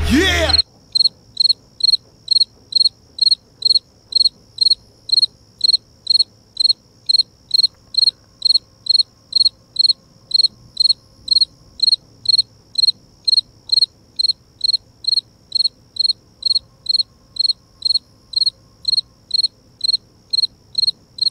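Music cuts off about half a second in, followed by steady cricket chirping, evenly spaced at a little over two chirps a second.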